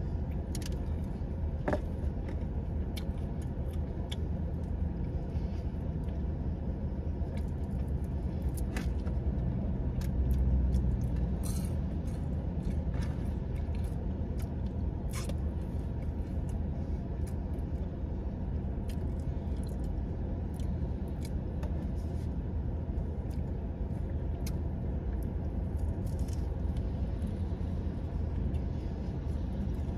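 Steady low rumble of a car idling, heard from inside the cabin, with a brief swell about ten seconds in. Scattered small clicks and mouth sounds from eating sit over it.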